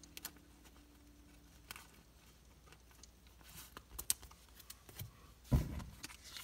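Panini Mosaic football cards handled in a stack, sliding against each other with faint scattered clicks and ticks. There is a soft low thump about five and a half seconds in.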